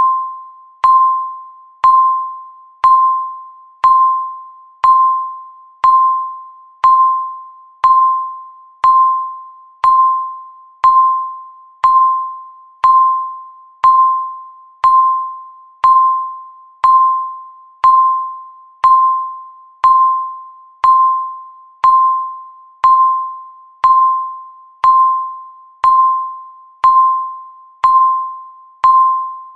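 Countdown timer beeping once a second: a short electronic tone of one pitch with a sharp start that fades away before the next, repeating evenly.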